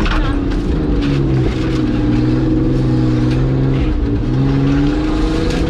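Nissan Patrol's swapped-in Nissan Skyline engine running hard under load, heard from inside the cab. The engine note holds steady, dipping briefly about a second and a half in and again at about four seconds.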